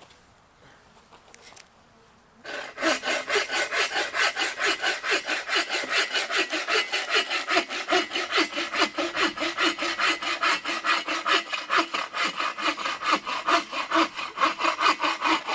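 A hand saw cutting through a hardwood log in quick, even back-and-forth strokes, about four a second. The sawing starts about two and a half seconds in.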